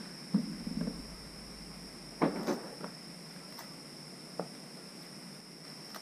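Sharp knocks and clacks from a kitchen knife cutting small green fruit by hand over a glass plate: one about half a second in, a quick cluster around two to three seconds, and one more near four and a half seconds. Insects chirr in a steady high-pitched drone behind.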